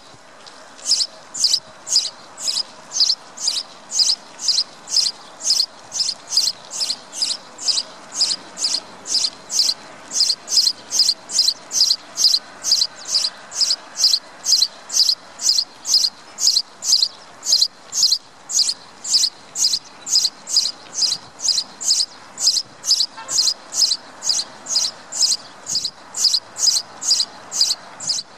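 House sparrow chirping one short, high cheep after another, about two a second, in a steady unbroken series.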